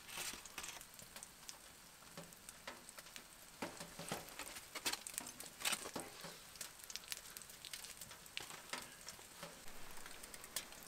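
Codfish cakes sizzling faintly in a lightweight pan on a wood stove top, with irregular crackles and clicks from crinkling tin foil being handled.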